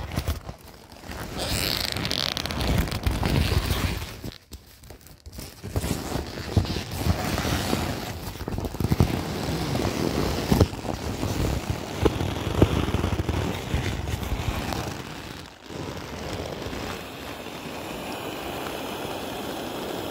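Vinyl of a large inflatable Bigmouth corgi sprinkler crinkling, rubbing and scraping as it is pressed and squashed to deflate it. Toward the end the handling settles into a steadier hiss of air escaping through its open twist valve.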